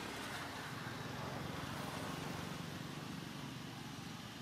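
An engine running steadily with a low, even hum, easing off slightly near the end.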